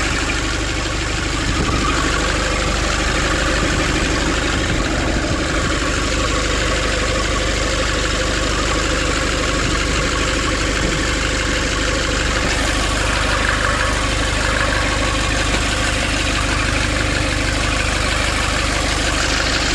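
Nissan Urvan's diesel engine idling steadily, running fine now that the leak in its fuel pipe to the diesel pump has been tightened.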